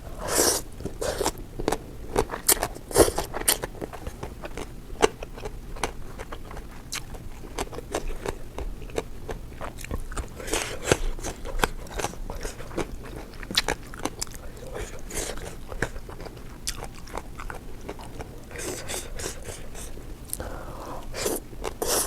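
A person biting and chewing crunchy fried chicken livers and gizzards close to the microphone, with irregular crunches and wet chewing clicks.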